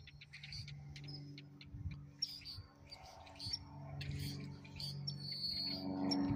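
Small birds chirping in quick, short calls over the steady low hum of a distant airplane's engine. The hum swells near the end.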